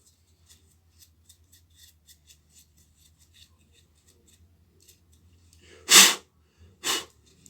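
Small brush scratching lightly over a graphics card's fan grille in quick strokes, then two loud, short bursts of breath about a second apart.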